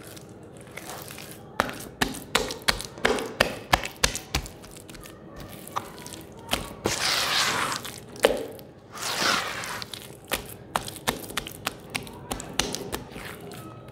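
Hands squeezing, slapping and dragging through thick wet sand paste in a plastic basin: a run of sharp wet slaps and clicks, then two longer squelching swishes partway through.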